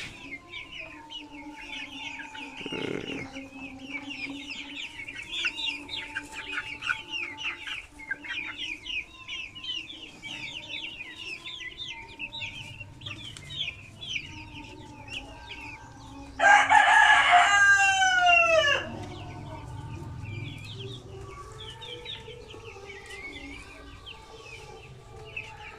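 Chickens and chicks peeping continuously in many short, high, falling chirps. About two-thirds of the way through, a rooster crows once for about two seconds, the loudest sound, its pitch dropping at the end.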